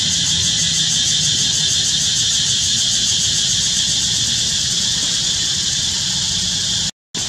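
Steady, high-pitched drone of an insect chorus in the trees over a low rumble, cutting out for a moment near the end.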